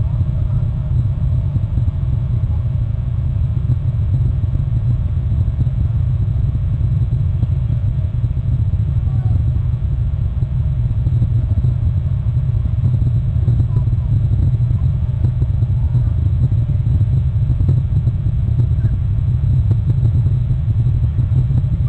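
A steady low rumble, loud and unbroken, with no distinct calls or knocks standing out.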